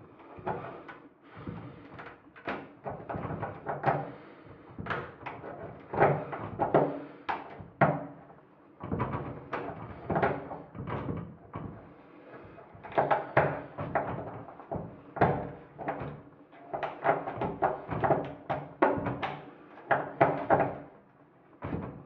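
Thin metal rod clicking, scraping and knocking inside the hole drilled into a euro lock cylinder, rattling against the lock's metal in irregular clusters with short pauses.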